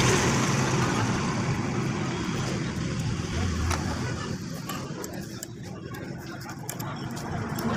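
Road traffic going past, a vehicle's noise fading away and more traffic coming up near the end, with a single sharp click of a tool about three and a half seconds in.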